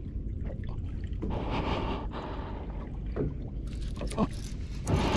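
Steady wind and water noise on a small boat, with a few short breathy gasps from the angler in the last two seconds as he works a heavily bent rod.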